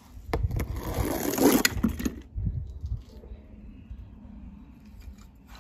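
Small toy car rolling and rattling down a plastic slide for about two seconds, then it goes quiet apart from a few faint clicks.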